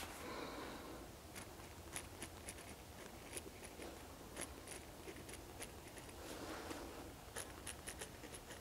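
Fine-tip Pilot G2 0.38 gel pen writing by hand on small paper label stickers in a spiral planner: faint scratchy strokes with scattered light ticks.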